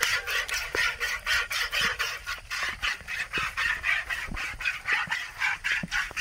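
Cow being milked by hand into a plastic bucket: jets of milk squirting into the bucket in a fast, even rhythm, about three squirts a second.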